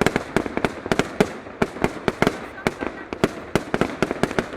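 Fireworks display going off in a rapid, unbroken string of sharp bangs and reports, several a second.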